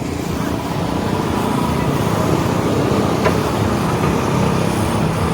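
A motor vehicle's engine running steadily, slowly growing a little louder, with a single sharp click about three seconds in.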